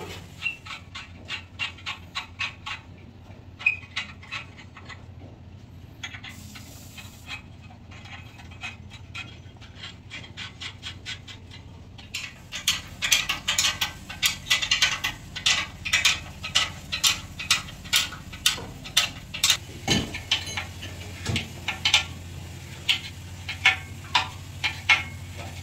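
Ratchet wrench clicking in quick runs of strokes while nuts are worked loose on the engine, with a pause in the middle and one louder metallic knock near the end of the busier second half. A steady low hum runs underneath.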